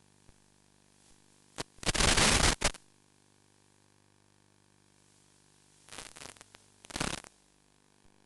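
Bursts of radio static hiss on the analog FPV video feed's audio: a loud burst a little under a second long about two seconds in, then two shorter, crackly bursts near the end, over an otherwise near-silent background.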